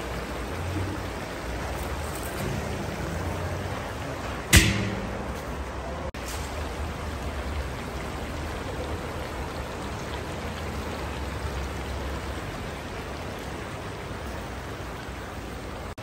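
Giant kazan of plov sizzling and steaming steadily, with one sharp ringing metal clank about four and a half seconds in as a steel bowl is set upside down on the rice.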